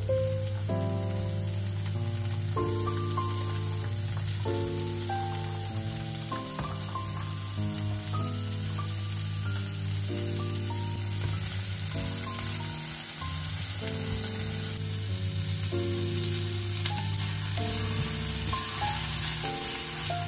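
Garlic and mixed vegetables (carrot, green beans and corn) sizzling as they fry in oil in a nonstick pan. Background music plays under the sizzle, a melody of short notes over a steady bass.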